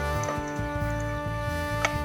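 Background music with held chords and a bass line, and a single sharp click near the end.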